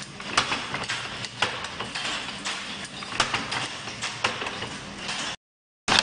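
Automatic steel-wire chain-making machine running, forming twisted wire links: sharp clacks a couple of times a second over a steady mechanical hum. The sound cuts out completely for about half a second near the end.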